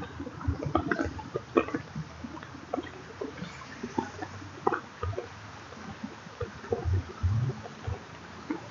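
Rain falling onto open canal water: a steady hiss with many small, irregular drop splashes. A few low thumps come near the end.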